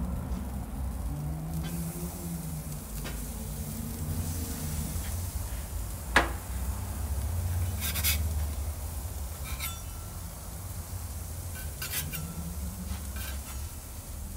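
Chicken burgers and oiled onion sizzling on a hot cast-iron grill grate, with a metal spatula clicking and scraping against the grate and baking stone; the sharpest click comes about six seconds in, with a few more later. A steady low rumble sits underneath.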